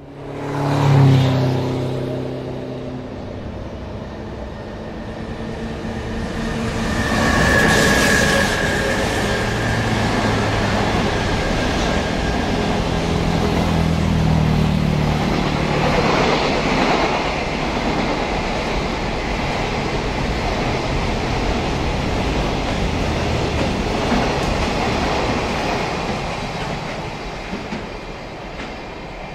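A container freight train passing close by and running away. It is loudest about a second in as the head of the train goes past, then gives a steady rumble and clatter of wagon wheels on the rails, with a brief high tone about eight seconds in. The sound fades near the end as the last wagon enters the tunnel.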